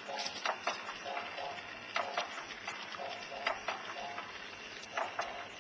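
A swing creaking and clicking in a steady rhythm as it sways back and forth, with a pair of sharp clicks and a short squeak about every second and a half.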